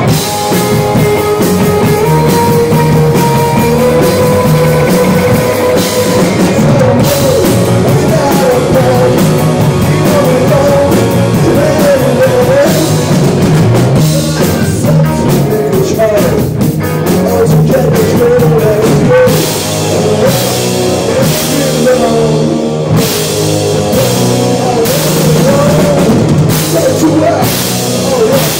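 A rock band playing loudly live, with electric guitars, bass guitar and a drum kit.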